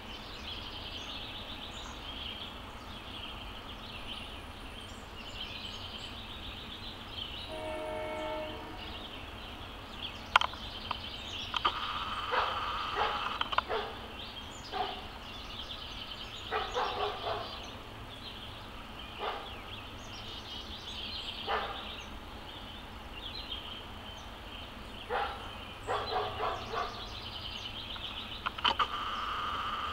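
Outdoor forest ambience: a steady high insect-like buzz, a brief pitched horn-like tone about eight seconds in, and, from about twelve seconds on, several clusters of short sharp calls at a distance.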